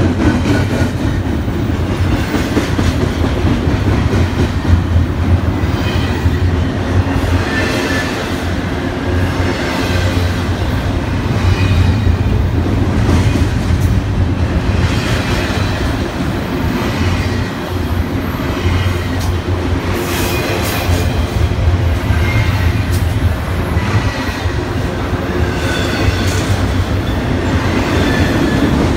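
Double-stack intermodal freight cars rolling past at speed: a steady low rumble of steel wheels on rail with clickety-clack over the joints, and brief high metallic wheel squeals that come and go every couple of seconds.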